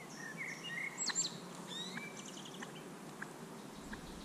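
Small birds singing: short whistled notes and quick sweeping chirps, with a couple of sharper chirps about a second in.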